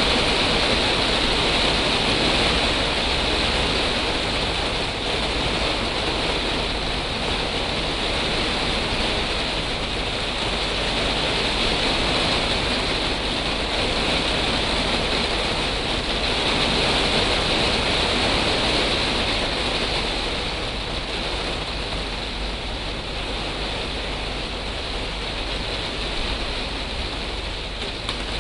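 Heavy rain falling steadily, a dense even hiss that eases slightly in the last few seconds.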